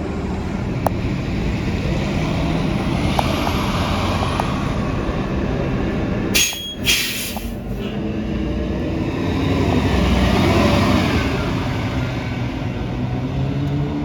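Diesel engine and drivetrain of a 2018 New Flyer XD40 transit bus droning, heard from inside the bus; the uploader calls the sound horrible. A short double hiss of air comes about six and a half seconds in, and the engine pitch rises near the end as the bus accelerates.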